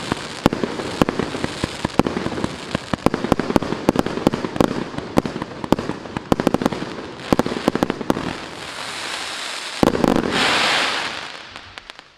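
Maxsem GWM6123 "Classic Show" consumer firework cake firing: a fast, uneven run of sharp bangs over steady crackling. About ten seconds in, a last loud bang is followed by a dense burst of crackle that dies away.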